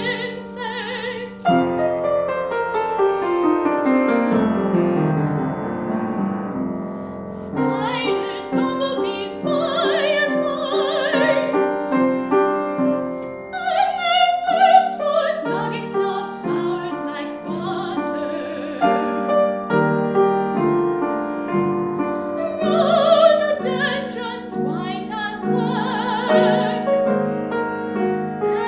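A woman singing a classical art song with vibrato, accompanied by piano. A couple of seconds in, the piano plays a falling run.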